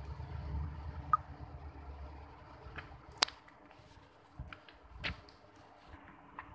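A phone being handled and tapped: scattered sharp clicks and soft thumps, the sharpest about three seconds in. A low background rumble fades out about two seconds in.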